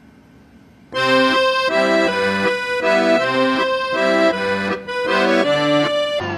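Instrumental music starts suddenly about a second in, after faint background noise: a held melody note over chords played in a steady bouncing rhythm.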